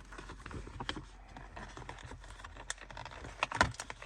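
Handling noise from packaging: light rustling with scattered small clicks, a few sharper clicks about three and a half seconds in.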